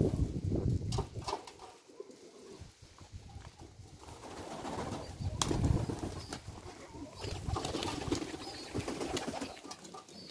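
Domestic pigeons cooing in swells, with a few wing flaps and short clicks.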